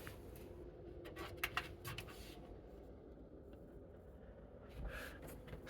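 A few faint clicks over a low steady hum. This is a home-built PC's power button being pressed with no start-up, because its power supply switch is off.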